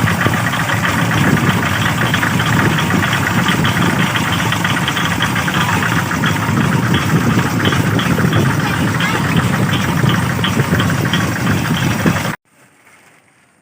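Kubota RD65 single-cylinder diesel engine of a Quick G600 hand tractor running steadily with a rapid diesel clatter. The sound cuts off suddenly near the end.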